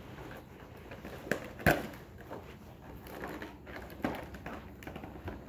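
Low room noise with a few short knocks and clicks from handling, two close together a little over a second in and a softer one about four seconds in.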